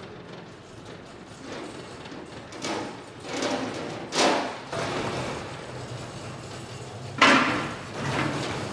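Heavy wheeled test rig rolled across a concrete hangar floor: a low rumble with several loud thuds and knocks, the loudest about seven seconds in.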